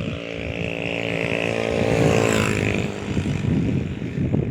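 A motor vehicle passes close by: its engine grows louder, then drops in pitch about two and a half seconds in as it goes past, with tyre and road noise.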